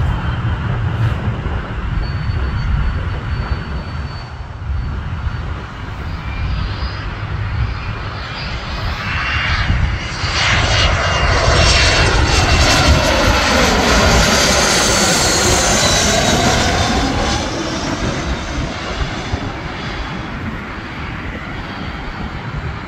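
Twin-engine business jet on final approach passing low overhead. Its engine noise swells to a peak about halfway through with a falling whine, then fades as it moves away toward the runway.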